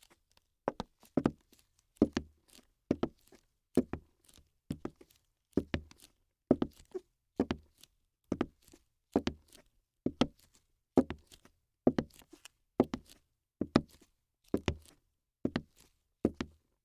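Regular knocks, roughly one a second, many heard as a quick double knock with a dull thump beneath.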